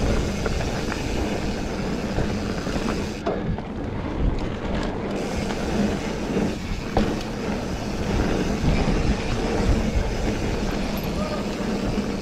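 Mountain bike rolling along a pebble-surfaced singletrack trail: a steady rush of tyre noise and bike rattle.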